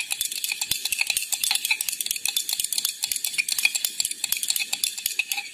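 A glass stirring rod clinking rapidly against the inside of a glass beaker, many strikes a second, as an oil phase and water phase are stirred vigorously together into a cold-cream emulsion so that they do not separate.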